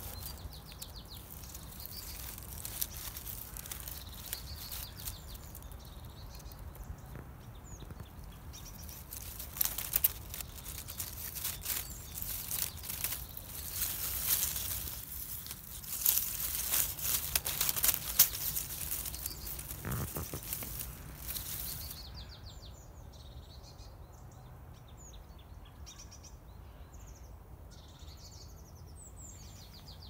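Dry leaf litter and grass rustling and crackling as it is disturbed, loudest in irregular bursts in the middle. Once the rustling stops, small birds chirp repeatedly in short, quick calls.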